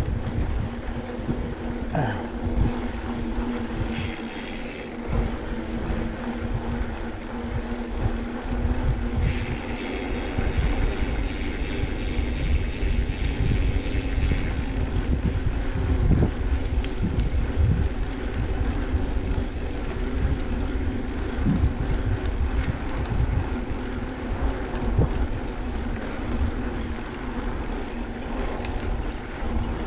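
A small motor running with a steady whine, under heavy low wind rumble and buffeting on the microphone. A hissing, rattly noise joins in for about five seconds around a third of the way in.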